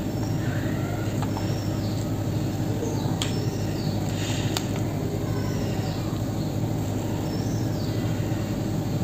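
Steady low rumbling hum at an even level, with a couple of faint clicks a few seconds in.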